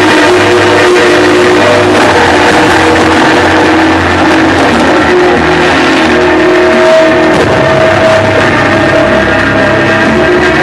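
Loud, dense music with sustained, guitar-like notes, played over a fireworks display's sound system.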